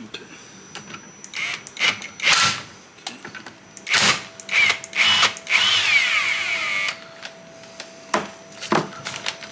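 A power drill runs briefly about halfway through and winds down in a falling whine, among scattered sharp knocks and clicks of metal suspension parts being handled.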